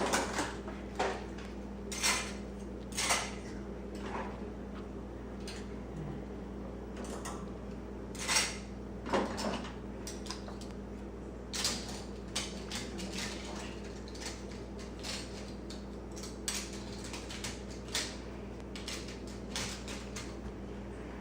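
Metal cutlery clinking and clattering in irregular bursts as pieces of silverware are handled and set into a drawer, over a steady low hum.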